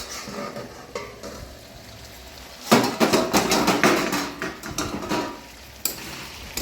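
Metal cookware clattering: a pot lid and a spoon knocking and scraping against a pot of chicken, with a dense run of quick knocks and scraping from about three seconds in that lasts a couple of seconds.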